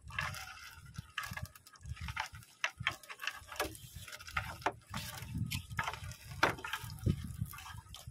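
Wet monofilament gill net being hauled in by hand over the side of a boat: irregular rustles, crackles, drips and splashes, with dull low knocks now and then.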